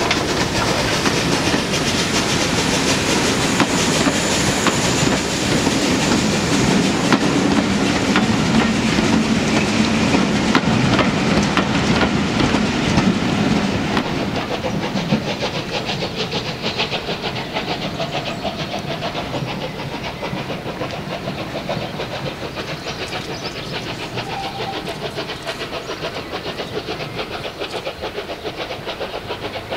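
Rebuilt Bulleid Battle of Britain class 4-6-2 steam locomotive no. 34053 moving slowly past close by, with steam hissing from its cylinders. About halfway through the sound drops to a quieter steam train pulling away from further off.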